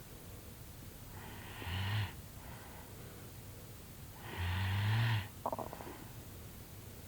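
A sleeping person snoring: two snores about three seconds apart, the second longer, each a low, steady drone. A brief rattle follows right after the second.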